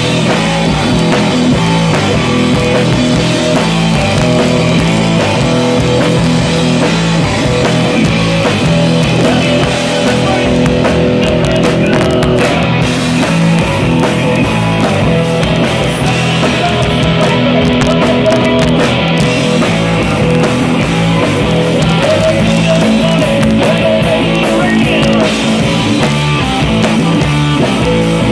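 Live rock band playing loud, continuous rock: two electric guitars, bass guitar and a drum kit.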